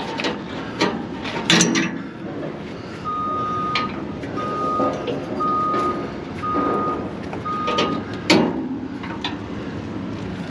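Electronic beeper sounding five even, single-pitch beeps about a second apart through the middle, with a few sharp clanks and knocks around them.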